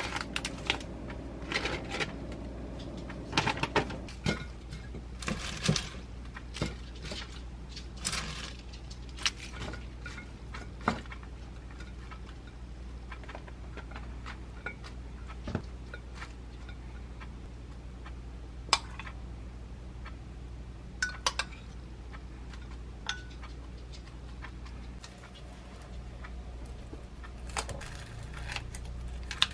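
Kitchen prep handling: rustling of shredded lettuce and cabbage and their packaging, with light clinks and taps of dishes and utensils, over a steady low hum. Near the end, kitchen scissors snip through a breaded cutlet.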